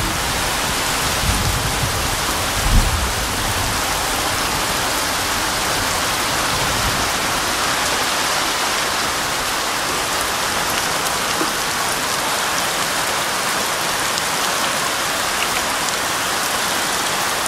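Heavy tropical downpour, a steady hiss of rain on the road, roofs and ground, with a low rumble in the first few seconds.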